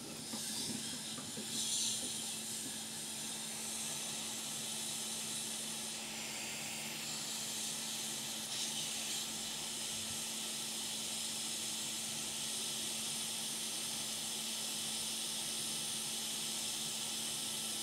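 Hot air rework station blowing steadily, a constant hiss with a faint low hum, as it heats a fluxed chip on a laptop motherboard to desolder it.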